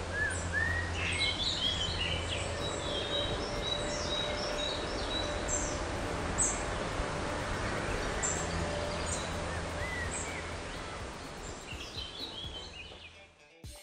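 Wild birds chirping and calling in woodland, many short high notes over a steady background rumble of outdoor noise, fading out near the end.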